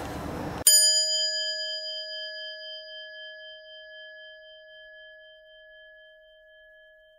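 A single struck metal bell, one clear ding with several high overtones, struck under a second in and ringing on as it slowly fades.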